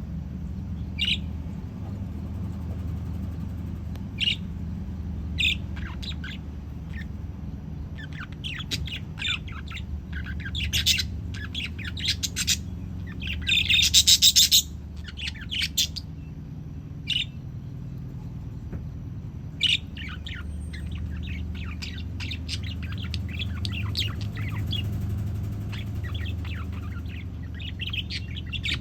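Budgerigars chirping in short scattered calls, with a louder burst of rapid chattering about halfway through, over a steady low hum.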